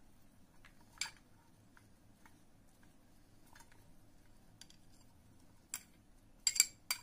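A few sharp metallic clicks and taps of a steel spoon on a steel bowl as chopped cucumber and coriander are scraped out into a steel mixer-grinder jar, the loudest cluster near the end.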